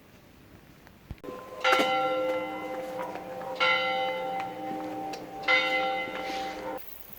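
A bell struck three times, about two seconds apart, each strike ringing on with many overtones until the sound cuts off abruptly near the end.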